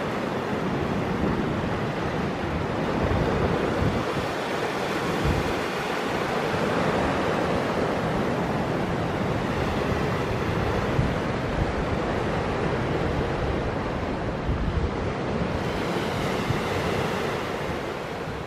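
Small sea waves breaking and washing in, a steady surging wash, with wind gusting on the microphone. The sound fades down near the end.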